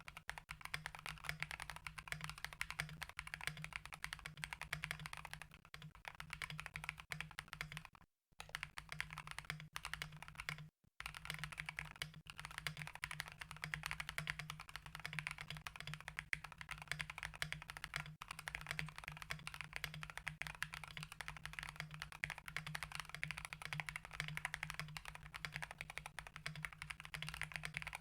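Mechanical keyboard with stock, unlubed Akko Radiant Red linear switches on an FR4 plate in an aluminium case with XDA-profile keycaps, typed on continuously in a fast patter of keystrokes. The sound cuts out completely twice, briefly, about eight and eleven seconds in.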